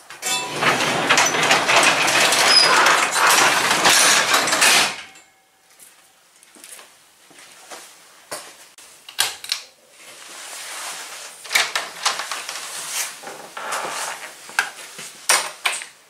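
A sectional garage door pulled down by hand, rattling loudly as it rolls shut for about five seconds, followed by quieter scattered clicks and knocks.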